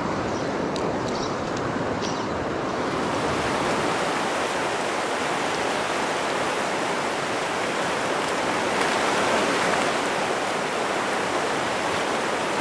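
Fast river current rushing over rocks: a steady, even rush of flowing water.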